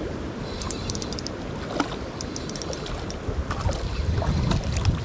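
Rushing water of a swollen river with wind buffeting the microphone, and clusters of light, quick clicks through it.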